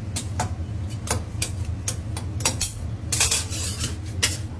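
Metal candy-making tools, shears and a knife, clicking and clinking against a marble slab as a batch of hot candy is handled, in scattered sharp clicks over a steady low hum.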